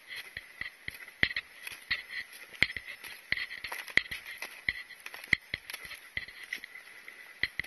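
Footsteps of a hiker walking up a snowy mountain trail, sharp crunching steps and clicks about three a second, with a steady high ringing that swells with each step.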